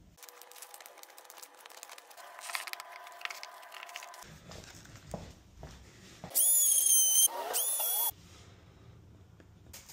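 Vinyl records and their paper sleeves rustling as they are handled, then an oscillating multi-tool whining in two short bursts as it cuts, its pitch rising as it spins up each time.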